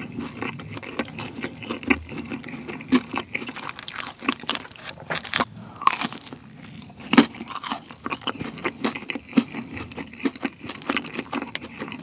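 Close-miked eating of sauce-coated fried chicken nuggets: irregular crunching and chewing, with a fresh bite taken partway through.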